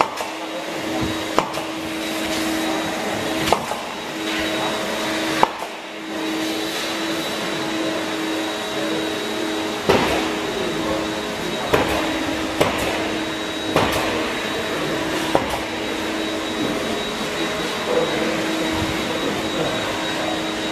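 Steady machinery drone: an even hiss with a low steady hum under it, broken by a few sharp knocks and clicks.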